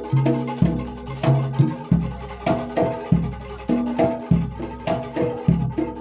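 Jaranan Dor ensemble music: a jidor bass drum and other drums keeping a brisk, steady beat under ringing pitched gong-chime percussion.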